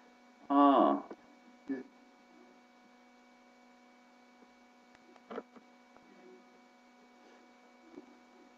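Faint, steady electrical hum made of several steady tones. A man's brief vocal sound cuts through it about half a second in, and a few soft short sounds follow later.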